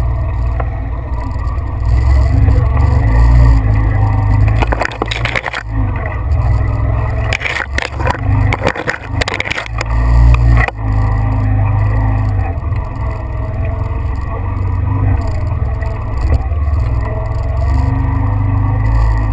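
Vehicle engine running under way with a steady low rumble, and bursts of rattling and scraping about five seconds in and again from around eight to ten seconds, as over rough ground.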